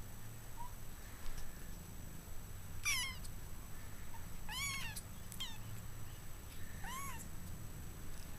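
Sixteen-day-old Maine Coon kittens mewing: a few short, high-pitched mews, each rising and falling, starting about three seconds in.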